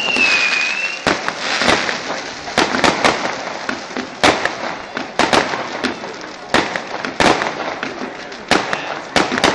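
Fireworks display: aerial shells going off in an irregular string of sharp bangs, about two a second. A whistling firework's falling whistle fades out about a second in.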